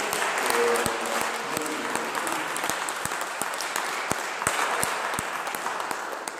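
Audience applauding, tapering off near the end.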